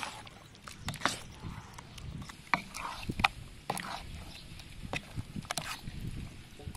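Hand squelching raw chicken pieces through thick, wet batter in a metal bowl: irregular wet squishes and small slaps.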